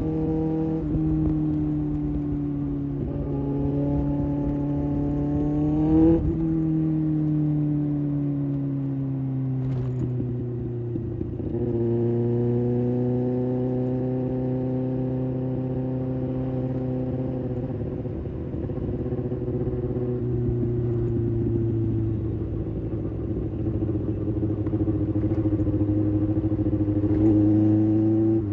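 Kawasaki ZX-6R inline-four engine riding at moderate revs, its pitch rising and falling with the throttle. It climbs to a sharp peak about six seconds in and drops, climbs again around twelve seconds, eases slowly down, and rises once more near the end. A low rumble of wind and road noise runs beneath it.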